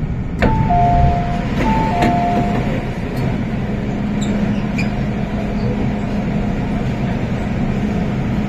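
MTR M-Train passenger doors opening at a station: a sharp click as the doors release, then the door chime, a falling two-note ding-dong that sounds twice. The train's steady equipment hum runs underneath.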